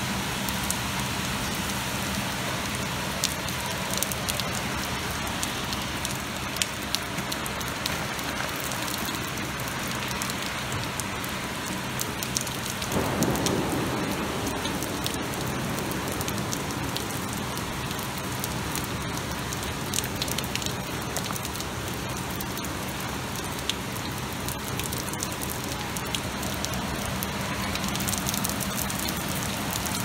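Extremely heavy rain pouring down in a steady rush, with frequent sharp ticks of drops striking close by. It swells into a louder rush for a moment a little before halfway through.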